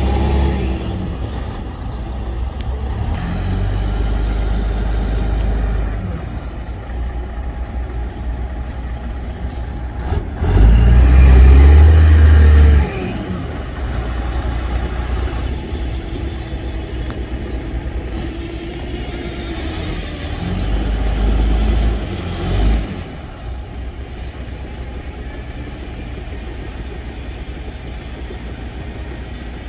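Heavy diesel engines of a dump truck and bulldozer working hard, revving up in repeated surges over a steady low rumble. The loudest surge comes about eleven to thirteen seconds in, and the engines settle to a lower, steady running near the end.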